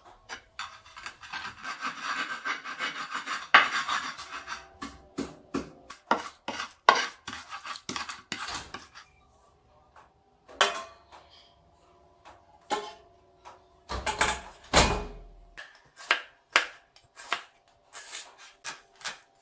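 Stone pestle grinding and scraping garlic and salt in a stone mortar, a dense rasping clatter over the first few seconds, followed by scattered knocks of kitchen handling and a couple of heavier thumps. Near the end a knife chops shallots on a plastic cutting board, about two cuts a second.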